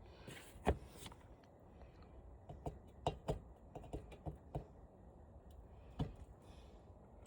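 Scattered light clicks and taps from handling the screws and parts of a flat-screen TV being taken apart. They are faint and irregular, with a cluster in the middle.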